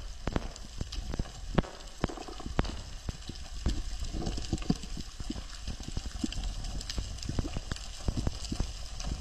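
Underwater ambience: irregular sharp clicks and knocks, several a second, over a low rumble of moving water.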